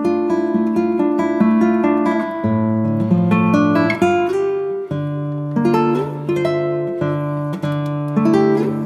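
Background music: an acoustic guitar picking a quick run of plucked notes over lower held notes.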